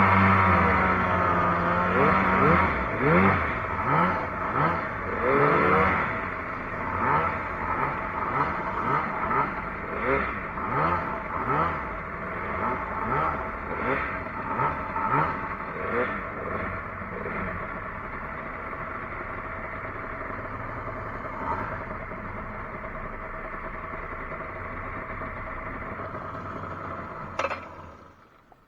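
Outboard jet boat motor revving up again and again in quick rising bursts, then running steadily. It cuts off near the end as the boat comes to a standstill in river debris.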